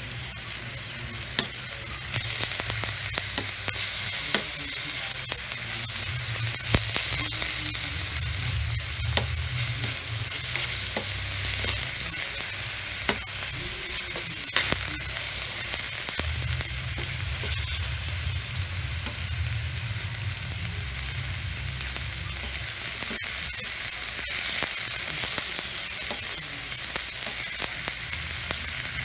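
Ground beef sizzling as it is stir-fried in a wok, with a metal spoon scraping and clinking against the pan now and then.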